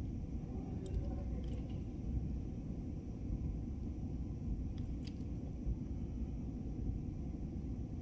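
Steady low rumble of background noise, with a few faint clicks and scrapes from a three-hole fiber optic stripper closing on the fiber and drawing the coating off.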